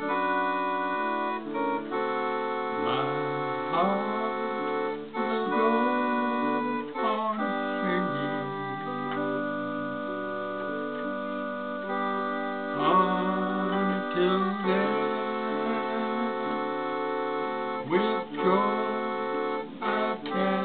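Electronic keyboard played with an organ voice: sustained chords of a gospel hymn tune, changing every second or so, with no singing over them.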